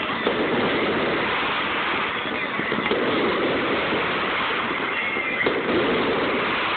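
Aerial fireworks barrage: a steady dense crackle with a few bangs and several short rising whistles.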